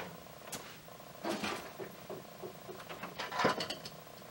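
Rustling and light knocks of parts and packaging being handled and moved aside, with a louder rustle about a second and a half in and another a little past three seconds, and a few soft ticks between them.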